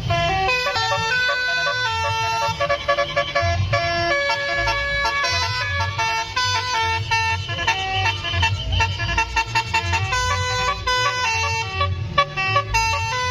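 Telolet basuri musical bus horn set to its reverse mode, playing a quick tune note after note over a low pulsing.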